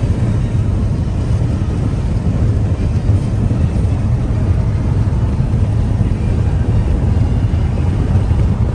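Steady low rumble of road and wind noise in a car cruising at highway speed.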